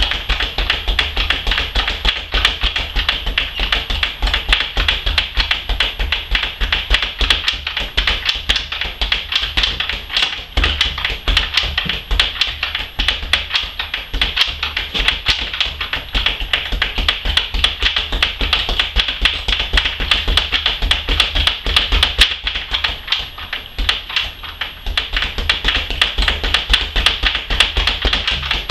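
A leather speed bag punched in a back-and-forth roll drill, rebounding off its platform in a rapid, even, unbroken run of taps.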